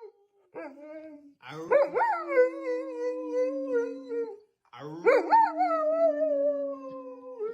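Dog howling: a short call, then two long drawn-out howls with a wavering, slowly falling pitch.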